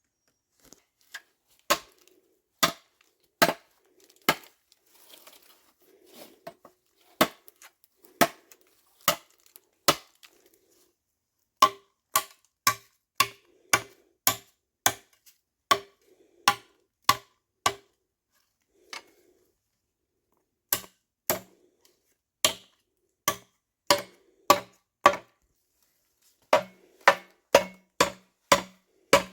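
Repeated sharp blows on wood, about one and a half strikes a second in runs, with a pause of a few seconds partway through. The strikes come faster near the end, each with a heavier low thud.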